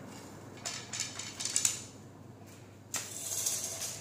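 Cloth rustling with light clicks and knocks as fabric is handled around the wooden rings of an embroidery hoop frame; a sharper knock comes just before three seconds in, followed by about a second of rustling.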